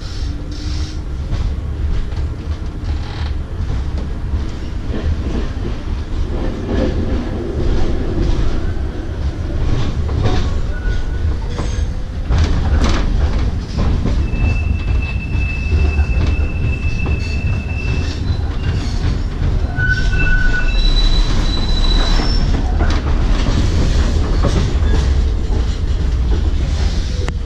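Schindler Waggon AG Be 4/6 tram running, heard from inside the passenger car: a steady rumble of wheels on the rails with clacks over track joints. About halfway through the wheels squeal in one long, high, steady tone, and a few seconds later come several shorter, higher squeals.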